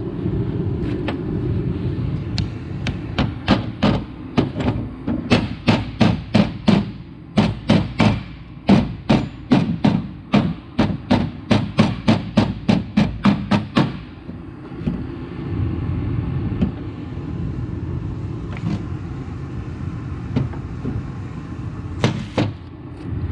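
Hammer blows on metal, a quick run of two to three strikes a second for about twelve seconds, seating a seal into a John Deere 6400 front planetary hub. Then a steady low hum with two more strikes near the end.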